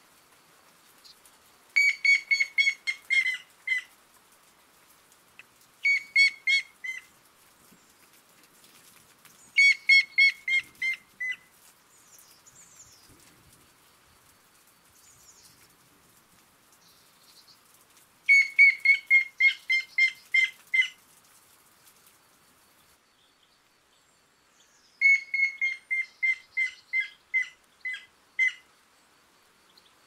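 Grey-headed woodpecker singing: five series of clear whistled notes, each a run of about six to ten evenly spaced notes that starts loud and fades away.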